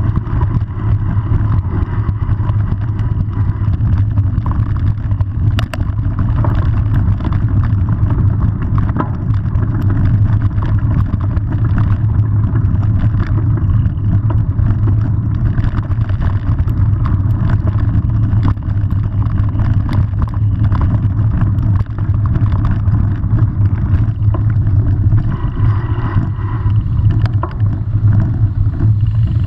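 Mountain bike rolling over rough dirt: steady rumble of tyres and wind buffeting the camera microphone, with frequent small rattles and clicks from the bike.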